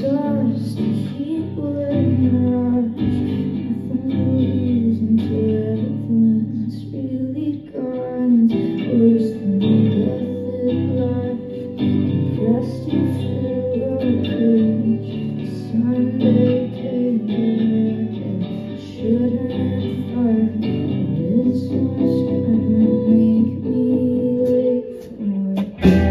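Live band music: a lead vocal sung over guitar, bass guitar and drums, playing without a break.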